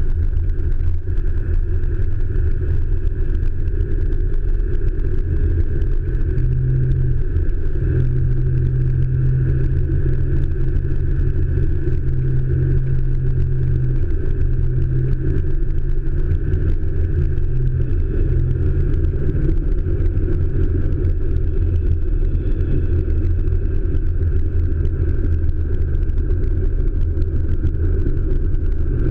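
A 1997 Ford F-350's turbocharged 7.3-litre Power Stroke diesel heard from inside the cab while driving: a steady low drone of engine and road noise, growing heavier for several seconds about a third of the way in.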